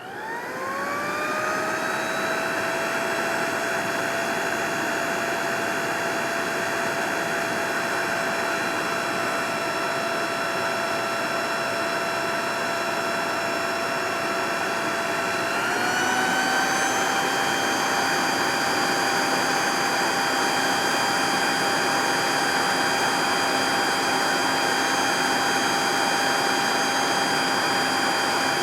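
Leaf blower spinning up to speed at the start, then running steadily with a high whine over a rush of air. About halfway through it steps up to a higher speed, a little louder and higher in pitch.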